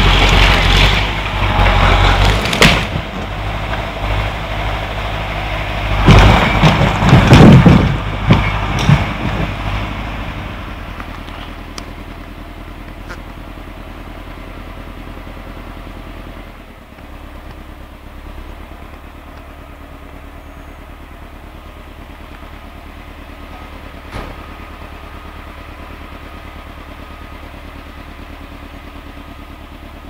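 A logging skidder's diesel engine runs. It is loud and busy in the first ten seconds, with heavy thuds and clatter, then settles to a quieter steady idle.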